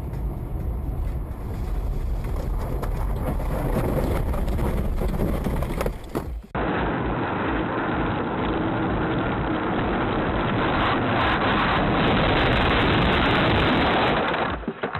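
Steady road and wind noise inside a moving car, from dashcam recordings. About six and a half seconds in, it cuts to a second, muffled recording of loud steady noise, which drops away near the end.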